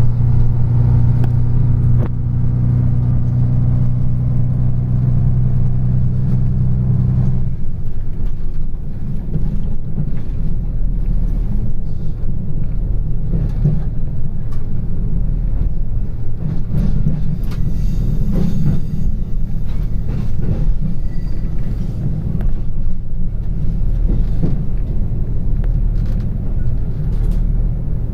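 KTR8500 diesel railcar under way: a steady low diesel engine drone for the first seven or so seconds. The engine tone then drops out, leaving the even low rumble of the running train with faint scattered clicks.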